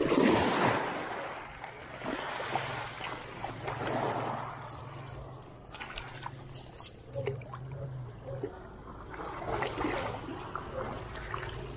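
Small waves washing onto a pebble shore in repeated swells, the loudest just at the start, with scattered sharp clicks between them.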